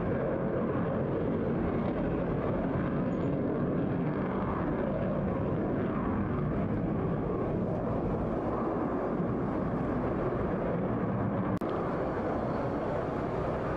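Steady, distant roar of a fighter jet's engines as it flies high overhead, with a brief dropout and click near the end.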